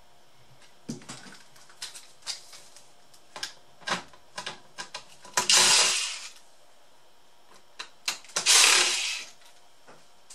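Laptop disassembly: small plastic and metal clicks and taps as parts and a screwdriver are handled, then two loud rushing noises, each about a second long, around the middle and near the end.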